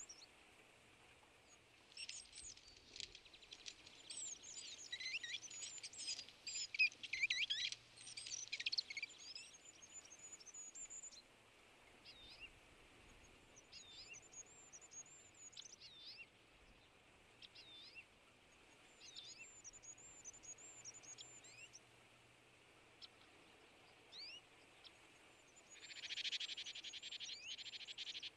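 Several small songbirds chirping and calling over one another. A dense spell of quick high chirps and trills runs from a couple of seconds in for several seconds, scattered single high calls follow, and another dense burst of chattering comes near the end.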